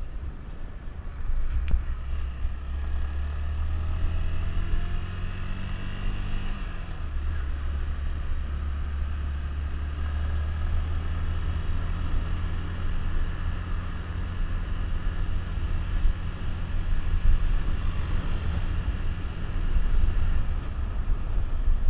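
Suzuki GZ150's single-cylinder four-stroke engine running on the move, with wind and road noise. The revs climb for a few seconds, fall back about seven seconds in, then hold steady.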